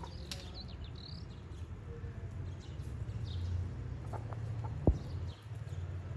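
Small birds chirping in short, rising and falling calls over a steady low rumble, with a single sharp knock near the end.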